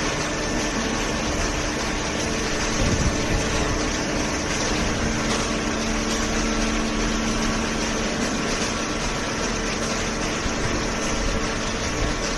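Machinery running steadily: a constant mechanical hum made of several steady tones over a wash of noise, with one more low tone joining about five seconds in.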